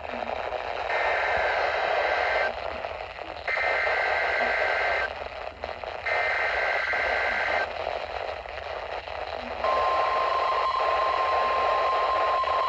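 NOAA Weather Radio EAS required weekly test received over a weather radio, with hiss underneath. It opens with three warbling two-tone SAME header data bursts, each about a second and a half long with a short pause between. Near the end the steady single-pitch 1050 Hz warning alert tone starts.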